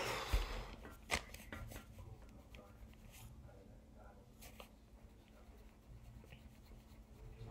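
Faint scratching of a pen on journal paper, with a few light clicks and taps, the sharpest about half a second and a second in.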